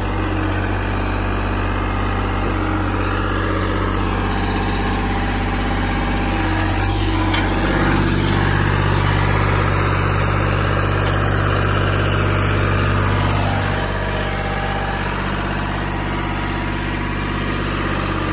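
Small gasoline engine of a Vermeer trencher running steadily as the machine is driven up onto a trailer deck. It gets louder for about five seconds in the middle, then settles back to a lower, even running sound.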